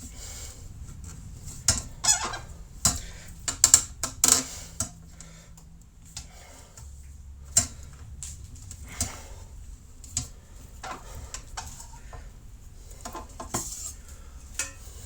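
Irregular metal clinks and knocks, a quick flurry in the first few seconds and then single knocks every second or two, from trumpet parts and metal repair tools being handled.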